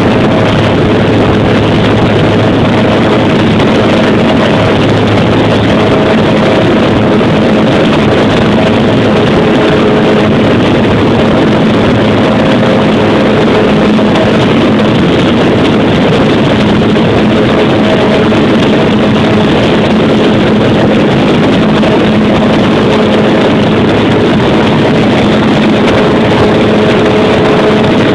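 Cessna 208B single-engine turboprop aircraft in flight: loud, steady engine and propeller noise mixed with rushing air, with a few constant humming tones and no change in pitch.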